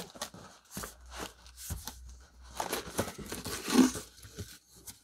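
A shipping package being cut and torn open with a small Victorinox pocket knife: irregular scratchy tearing and crinkling of cardboard and packing material, loudest just before four seconds in.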